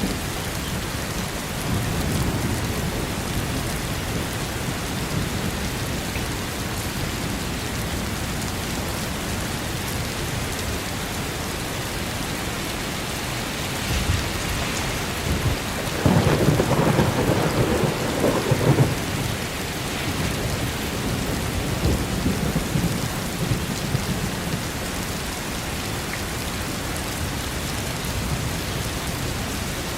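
Steady rain falling, with thunder rumbling: a low swell a couple of seconds in and a louder, longer rumble about halfway through lasting some three seconds.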